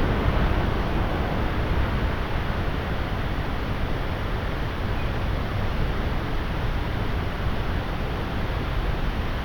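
Heavy rain pouring steadily in a thunderstorm, with strong wind; no thunderclap stands out.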